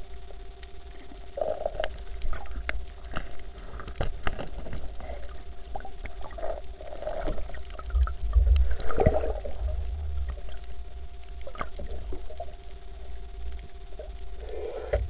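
Underwater sound picked up by a diving camera: a low rumble of water moving against it, with scattered sharp clicks and crackles and a few gurgles, loudest in the middle. A faint steady hum runs underneath.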